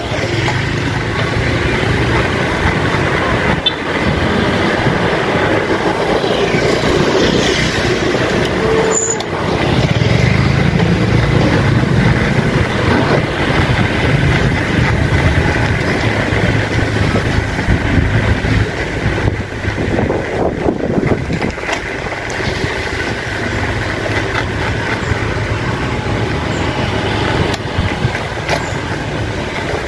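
Steady rolling noise of a bicycle being ridden along a street, with a low rumble and a few sharp clicks or knocks.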